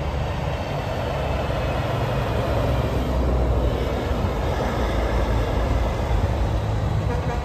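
Heavy semi-trailer truck driving past on the highway, its engine rumble and tyre noise building to a peak about three or four seconds in and easing near the end.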